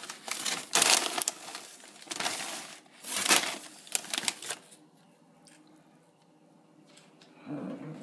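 Plastic bag of tortilla chips crinkling as a hand rummages in it for a chip, in irregular bursts that die away about five seconds in.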